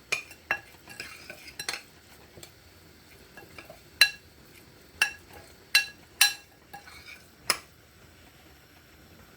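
A spoon stirring a seasoning and oil paste in a bowl, clinking against the bowl's side about nine times at uneven intervals, each clink with a brief ring.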